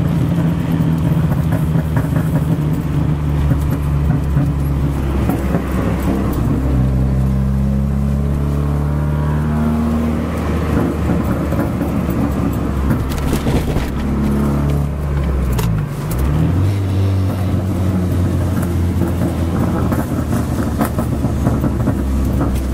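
Hyundai Tiburon's loud, poorly muffled exhaust as the car drives. The engine note rises and drops several times as it revs and shifts, and a few sharp exhaust backfires crack out in the middle and again near the end. Heard from inside the cabin with the window down.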